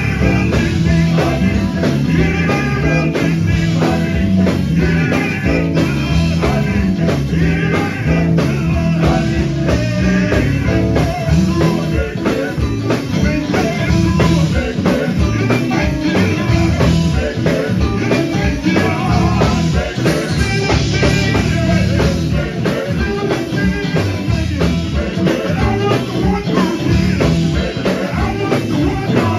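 Live gospel music: a lead singer belts into a handheld microphone, backed by group singers and a band with drum kit, all through the hall's PA.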